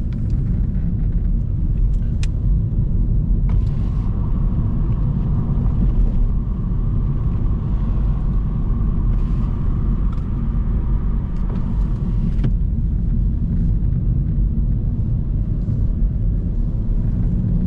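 Renault Megane 4 on the move: a steady low rumble of road and engine noise. A faint high whine sits over it for several seconds in the middle.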